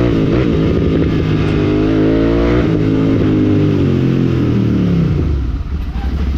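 Royal Enfield Continental GT 650's 648 cc parallel-twin engine through a Red Rooster Stellar aftermarket exhaust, pulling hard under way. The pitch climbs, drops at gear changes right at the start and about two and a half seconds in, then falls away as the throttle closes near the end.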